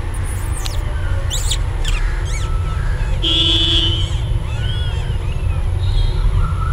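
Newborn kittens mewing: a string of short, high-pitched calls, over a steady low rumble.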